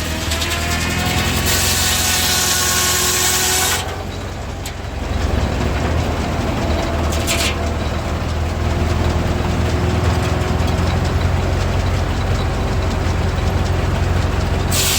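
Antique sawmill running: an engine's steady low drone with the saw blade's whine. The sound changes abruptly about four seconds in.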